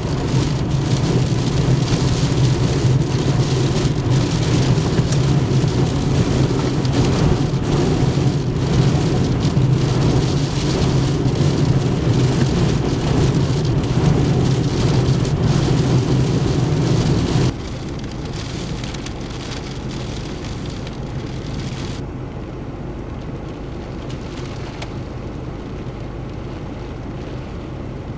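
Heavy rain pouring down in a dense crackling hiss over a steady low rumble. About two-thirds of the way in it cuts abruptly to a quieter, steady rush of storm noise.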